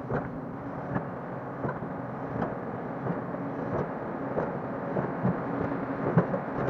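Hyundai crawler excavator's diesel engine running steadily under working load, with irregular short knocks and clanks from the bucket and arm as it scrapes and spreads soil.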